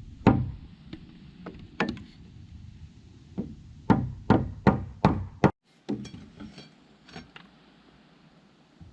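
Hammer blows on timber: a few scattered strikes, then a quick run of five loud ones about four seconds in, followed by fainter knocks and clicks.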